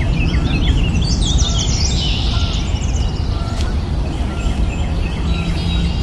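Many small birds chirping and twittering in quick, repeated notes, with a dense flurry of calls about a second in, over a steady low rumble.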